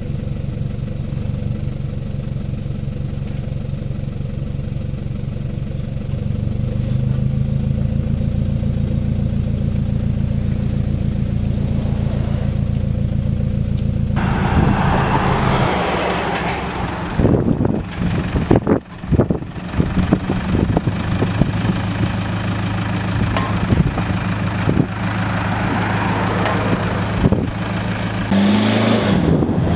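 Toyota Prado 150's diesel engine idling through a 3-inch TaipanXP exhaust with a Vortex muffler and rear resonator, a steady low exhaust note that gets a little louder about six seconds in. About halfway through, heavy wind buffeting on the microphone cuts in over the engine sound and stays loud.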